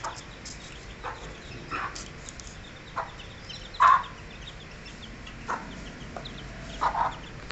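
Chickens clucking: short single clucks every second or so, the loudest about four seconds in, with faint high chirping between them.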